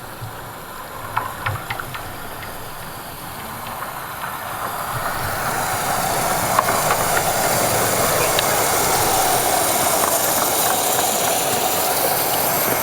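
A few sharp clicks, then a rushing train noise with steam hiss that builds over a couple of seconds and holds steady: a Romney, Hythe and Dymchurch Railway miniature train running close by.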